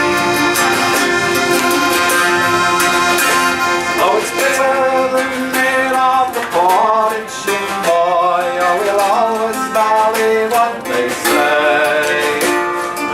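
Acoustic folk band playing accordion with strummed guitar. A wavering melody line comes in about four seconds in.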